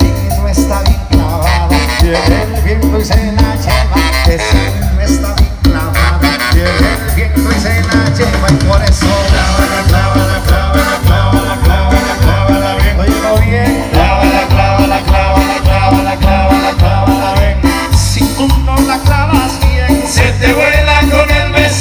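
Live cumbia band playing loud amplified dance music, with a steady repeating bass beat and quick rhythmic percussion.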